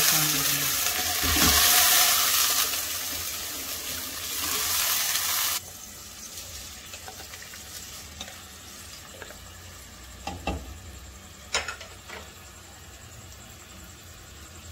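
Mutton stock (yakhni) poured into a pot of browned mutton in hot desi ghee, sizzling and hissing loudly for about five seconds, then stopping suddenly. After that it is much quieter while rice is tipped into the pot from a glass bowl, with two sharp knocks.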